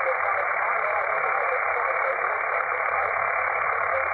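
Steady static hiss from an FX-4CR HF SDR transceiver receiving 40 m lower sideband on 7.168 MHz: band noise heard through the narrow SSB receive filter, so it sounds thin and band-limited.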